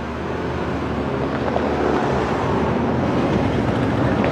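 Freight train cars rolling past, a steady rumble of wheels on rail that grows slowly louder.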